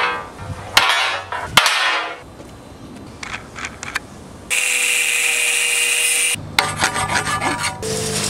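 Steel pipes clanking and ringing as they are handled, then an angle grinder with a metal cut-off wheel running steadily for about two seconds as it cuts steel, then more metallic clanks.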